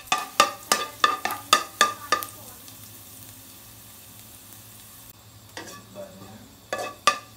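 Minced garlic frying in hot oil in a nonstick wok, sizzling, while a slotted metal spatula stirs it in quick strokes, about three a second, for the first two seconds. Then only the steady sizzle, with a few more spatula strokes near the end.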